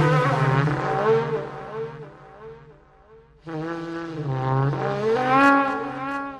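Eerie wailing, groaning drone with wavering, gliding pitch over a steady low hum, one of the unexplained 'strange sounds' heard in the sky. It fades out about two seconds in, and after a moment of near silence it starts again abruptly with rising and falling pitch.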